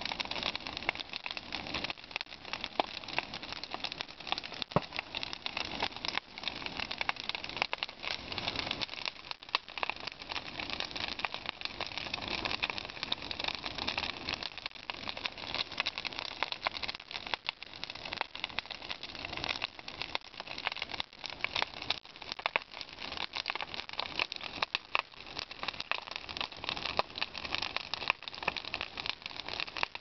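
Large bonfire of brush and branches burning hard, with dense, continuous crackling.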